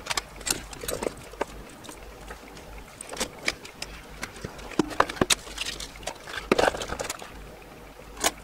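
Irregular clicks, taps and brief scrapes from hands handling a circuit board and small tools on a workbench, busiest about two thirds of the way through.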